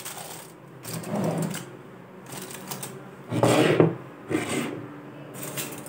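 Rustling and scraping from handling a foil-covered mould tray and small terracotta pots on a tabletop, in three short bursts, the loudest a little past halfway.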